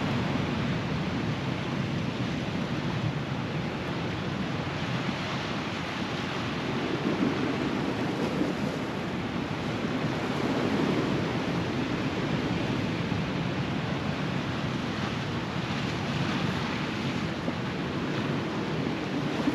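Sea swell breaking and washing over rocks: a steady rush that swells louder a couple of times around the middle, with wind buffeting the microphone.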